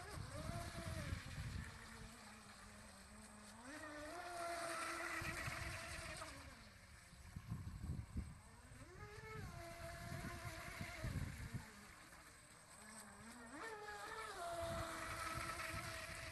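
Radio-controlled fast electric boat's motor whining as it runs on the water. The pitch rises as the throttle opens, holds steady, then drops off again, three times over.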